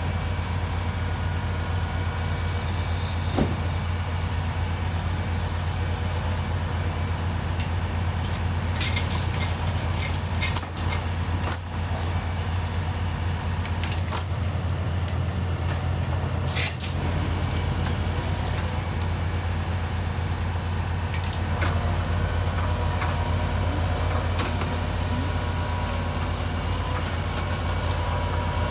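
Heavy diesel engines running steadily at idle, a low even drone, with sharp metallic clinks now and then from lifting chains and rail track being handled.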